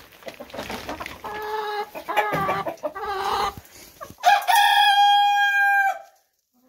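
A flock of chickens clucking and squawking in a run of short calls, then one long, steady call from about four seconds in that lasts nearly two seconds and cuts off abruptly.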